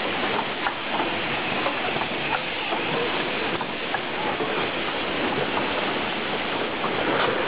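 Steady factory-floor din from a row of rotary blow molding machines running: a dense, even hiss with small clicks and clatter scattered through it.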